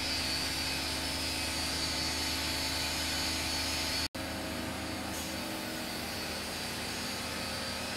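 Steady mechanical hum and hiss of brewery plant machinery, with a low drone and a high whine. The sound cuts out for an instant about four seconds in, then carries on a little quieter.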